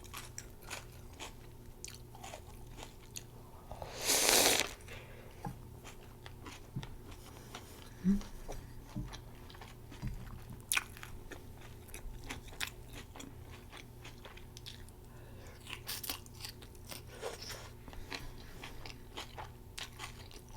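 Close-miked chewing of a homemade plant-based Impossible Burger, with many small wet mouth clicks. A bite or louder chew comes as a half-second burst of noise about 4 seconds in, and a shorter one about 16 seconds in.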